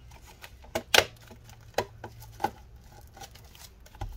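Hard plastic casing of an external hard-drive enclosure clicking and knocking as hands slide and press its parts together: a handful of sharp clicks, the loudest about a second in.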